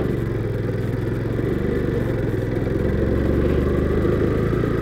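Motorcycle engine running at a steady pace while the bike rattles over a rough dirt-and-gravel road, picked up by a helmet-mounted microphone. A brief knock at the very start.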